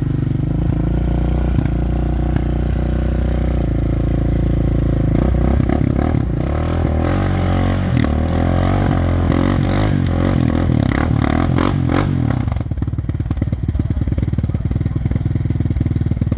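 ATV engine running and revving up and down over the trail, with clattering knocks from the machine over rough ground through the middle. About three-quarters of the way in the engine settles into a steadier, lower running.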